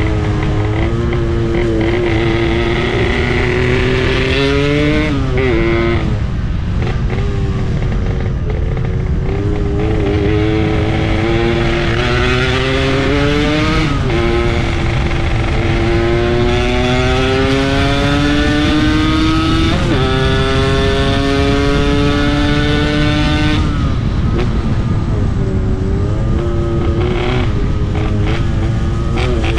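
Yamaha RX-King 135cc two-stroke single-cylinder motorcycle engine under hard acceleration while riding, its pitch climbing through each gear and dropping at the shifts, about five times. A constant low rumble of wind and road lies underneath.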